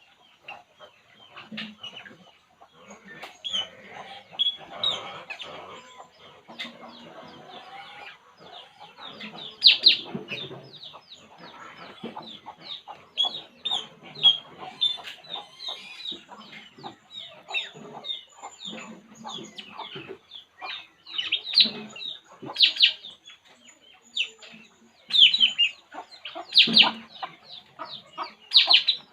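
A bird, known locally as a burung puling, calling in a rapid run of short, high, falling chirps, several a second, louder and more spaced in the second half, with occasional lower clucking notes beneath.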